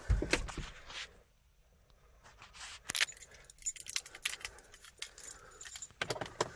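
Small metal objects clinking and rattling in scattered sharp clicks, like keys being handled, after a low thump at the start and a near-silent pause about a second in.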